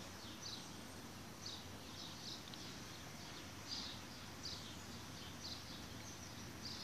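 A bird chirping faintly and repeatedly: short, high, falling notes about once or twice a second, over a steady low background hum.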